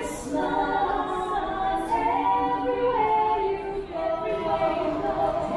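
A cappella vocal group singing: several voices in harmony, holding long notes and stepping between pitches, without instruments.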